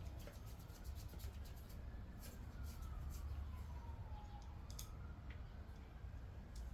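Scattered light clicks and taps of small metal hardware being handled as the battery terminal screws are put back in, over a steady low hum.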